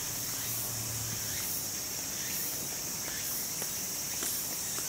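Steady high-pitched insect chirring, swelling and fading about once a second, with a few faint ticks.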